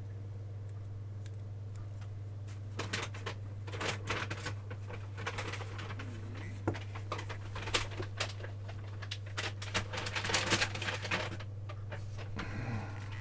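Handling noise from a soundbar's circuit board and its metal shield being held and turned over by hand: scattered clicks, taps and light rattling, busiest in the middle. A steady low hum runs under it.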